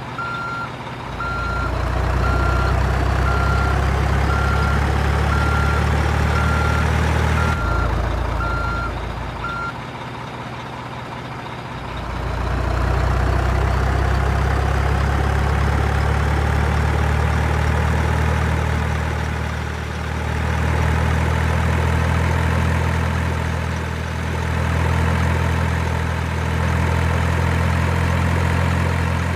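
Simulated diesel truck engine sound from an RC truck's sound unit, with a reversing beeper beeping about once a second for the first ten seconds. The engine sound drops back for a few seconds, then returns and slowly rises in pitch as if revving under load.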